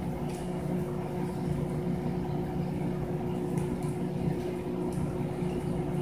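Steady mechanical hum of aquarium equipment running, with a few faint ticks.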